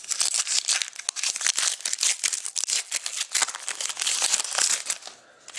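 Thin plastic wrapping crinkling and tearing as fingers peel it off a trading card, a dense run of crackles that stops near the end.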